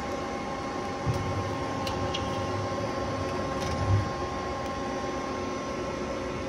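Powered-up 1995 Mazak QT18N CNC lathe running with a steady machine hum made of several steady tones. Two dull low thumps come about a second in and near four seconds.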